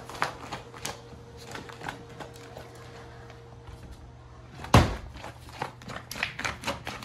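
A Westie's claws scratching and tapping on the plastic of an inflatable water-filled baby play mat, a run of quick clicks and scrapes, with one loud thump just under five seconds in.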